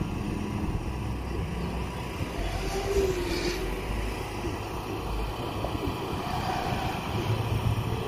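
FPV racing quadcopters flying the course some way off, a faint buzz whose pitch slides up and down as the motors throttle, over a low steady rumble.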